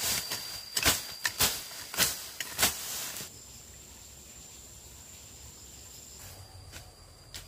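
A series of sharp knocks, roughly two a second, which stop about three seconds in. After them a thin steady high tone goes on.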